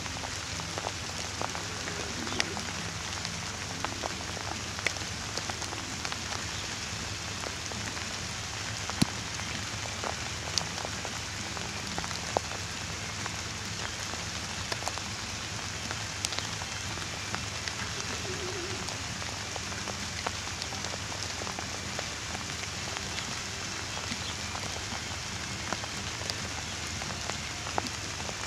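Steady rain, an even hiss with many scattered sharp ticks of drops hitting close by.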